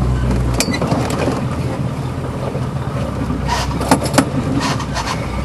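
Off-road vehicle's engine pulling steadily under load up a hill climb, heard from the driver's seat, with sharp knocks and rattles from the body over rough ground, a cluster of them near the end.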